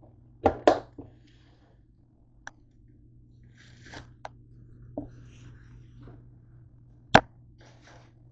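A camera being handled and shifted about on a kitchen counter: a series of sharp knocks and clunks, the loudest about half a second in, again just after and near the end, with handling rustle between, over a steady low hum.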